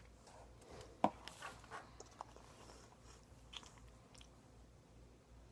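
Quiet mouth sounds of a hard lollipop being sucked, with scattered small clicks as the candy knocks on teeth; the sharpest click comes about a second in.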